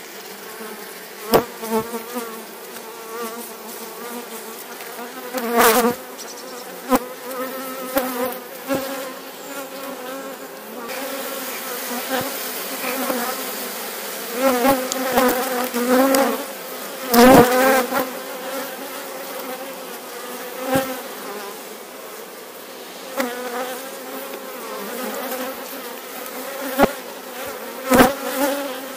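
Honeybees buzzing around an open hive, a steady hum that wavers in pitch. Sharp knocks and clicks of wooden hive frames being prised out and handled come through it several times, the loudest a little past halfway.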